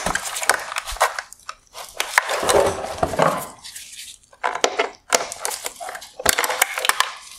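Sharp plastic clicks, knocks and scraping as a wiring harness and its clips are worked loose from a plastic headlight housing by hand and with pliers, with the wires rustling against the housing.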